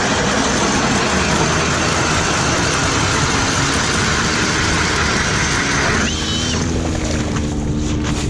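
Powered ice auger boring through lake ice, a loud, steady rush of motor and cutting blades. About six seconds in the sound changes to a lower, steadier motor hum with a brief rising whine, as the auger comes up out of the hole.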